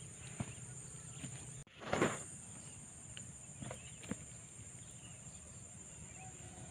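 Insects buzzing in a steady, high-pitched drone, with a few faint ticks and rustles. About two seconds in there is one brief, louder rush of noise.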